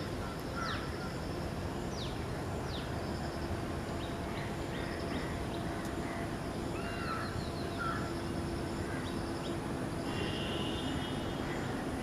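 Crows cawing again and again, with quick high chirps among the calls, over a steady low hum.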